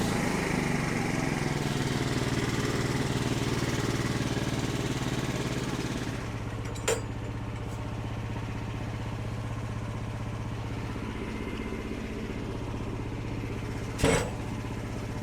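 Portable bandsaw sawmill's gas engine running under load as the blade cuts through a red oak log. About six seconds in the engine drops to a lower, steady speed as the cutting noise falls away. Two sharp knocks, about seven seconds apart, the second louder.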